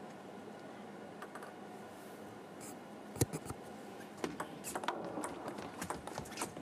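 Table tennis ball clicks against a low hall murmur: one sharp click about three seconds in, then a quick run of ball-on-paddle and ball-on-table clicks as the serve and return are played.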